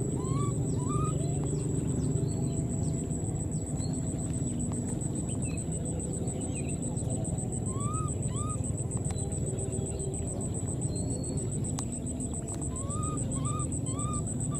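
Baby monkeys giving short, high, rising-and-falling squeaks in little runs of two or three: at the start, about eight seconds in and again near the end. Under them run a steady low rumble and a thin, high, steady whine.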